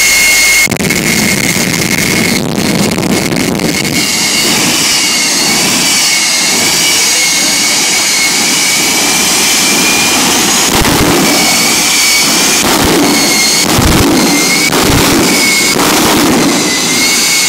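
Jet engine of a jet-powered drag-racing semi truck running with a steady high-pitched turbine whine over a rumble, with several sharp pops mixed in.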